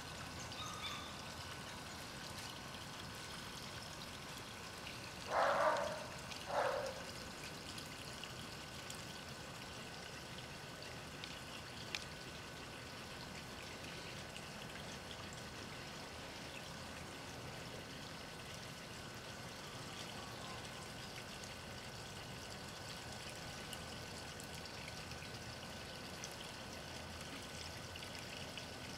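Steady trickling, pouring water, with two short cries about five and a half and six and a half seconds in.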